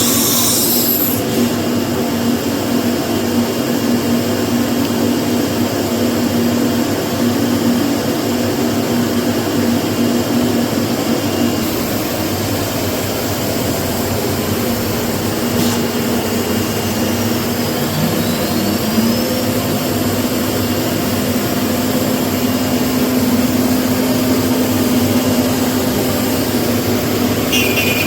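CNC router spindle running steadily while it machines a workpiece: a continuous drone and hiss with a steady low tone.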